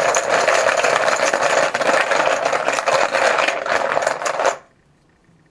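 Team-logo poker chips rattling and clacking against each other as they are shaken and stirred in a container, mixing them for a random draw. The dense clatter stops suddenly about four and a half seconds in.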